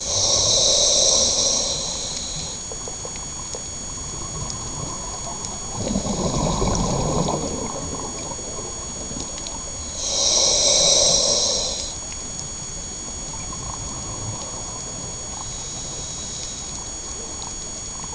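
A scuba diver breathing slowly through a regulator underwater: two hissing inhalations, one at the start and one about ten seconds in, with a gurgle of exhaled bubbles between them. A faint steady high whine runs underneath.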